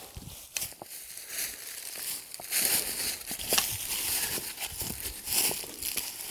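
Footsteps crunching and rustling through dry leaves and undergrowth on a mountain slope, in uneven steps with crackles and snaps.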